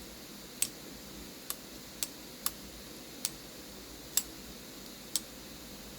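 Vosteed Valkyrie button-lock folding knife clicking as its blade is flipped open and shut: seven sharp, separate clicks at uneven spacing, with the button lock releasing with very minimal stick.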